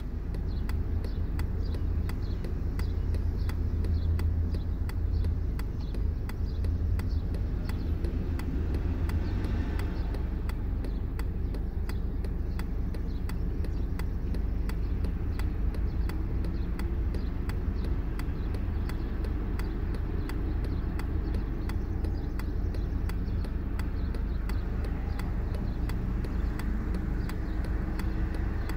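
Steady car running noise heard from inside the cabin while driving: a low engine and road rumble with tyre hiss. A faint engine note rises slowly in the second half.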